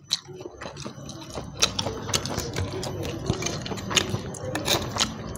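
Crisp fried tilapia crackling as it is pulled apart by hand and chewed: a steady run of quick, irregular small clicks and crunches.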